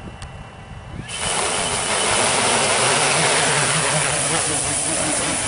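Large quadcopter's DJI E1200 motors and propellers starting about a second in and running steadily: a loud, even rush of propeller noise over a low wavering hum.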